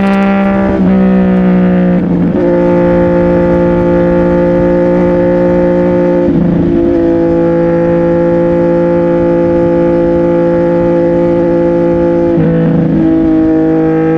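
CFMOTO 675NK's three-cylinder engine through a titanium full-system exhaust, running at steady revs while riding, with brief changes in pitch a few times as the revs shift.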